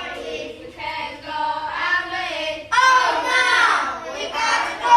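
A group of children's voices chanting lines together in English, with a loud new phrase starting about halfway through.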